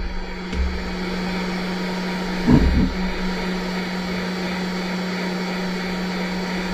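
Hot air rework station blowing steadily at about 100 °C, a constant fan whir with a steady hum, warming a plastic earbud housing to soften its glue. A short knock about two and a half seconds in.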